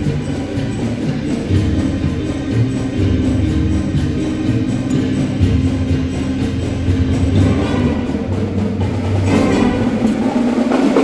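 Music with percussion and sustained low notes, played in a gymnasium; it grows fuller and brighter about nine seconds in.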